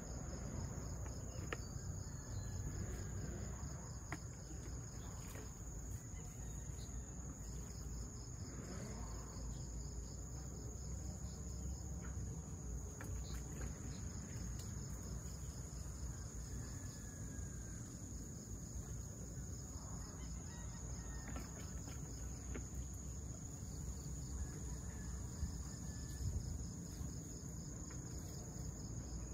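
Insects chirring in a steady high drone, with a faster pulsing trill just below it.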